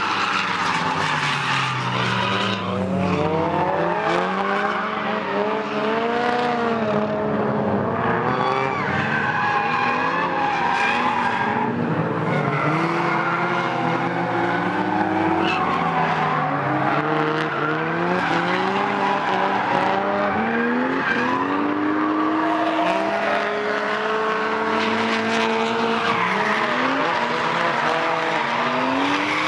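Car drifting: the engine revs rise and fall every second or two while the tyres squeal and skid on the track surface.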